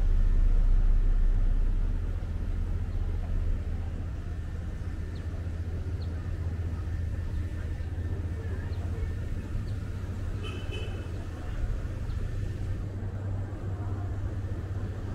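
City street sound dominated by the low rumble of a motor vehicle, loudest at the start as it goes by, then settling into a steady traffic hum.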